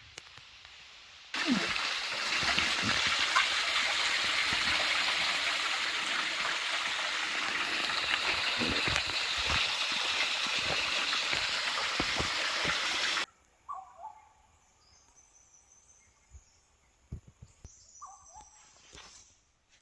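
Rushing stream water, a loud steady hiss that cuts in sharply about a second in and stops abruptly well before the end. Then a quiet stretch with a few bird chirps.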